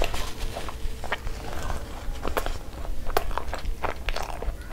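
Close-miked wet eating sounds: chewing a mouthful of butter chicken and rice, with irregular clicks and smacks.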